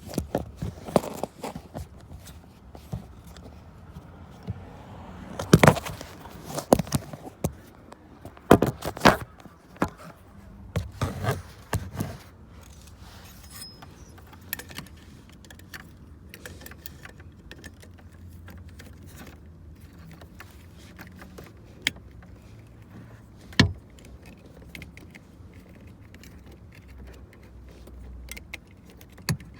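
Clicks, rattles and knocks of small metal and plastic parts as a headlight switch is worked into a car's dash. The handling is busiest over the first dozen seconds, then turns to scattered ticks, with one sharp knock a little past the middle.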